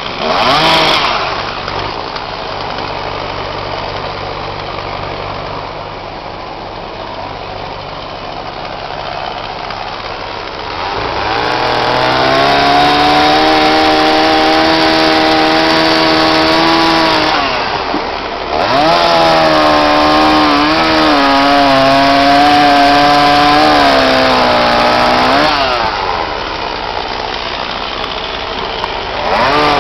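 Two-stroke chainsaw idling, then run up to full throttle for several seconds to cut branch stubs off stacked logs. The pitch drops back to idle briefly and the saw runs up again for a second long cut, wavering slightly under load. It starts revving a third time near the end.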